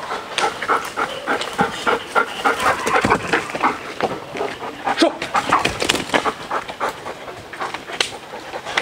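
Belgian Malinois dog panting after running and climbing.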